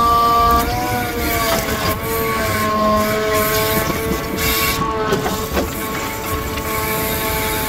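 Hydraulic crane of a 5-ton grapple truck at work: a steady machine whine that shifts slightly in pitch as the boom and grapple swing. A few sharp clicks and knocks sound along the way.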